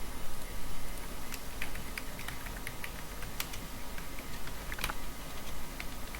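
Computer keyboard typing: irregular key clicks in short runs, with a louder clatter of keys near the end, over a steady low hum.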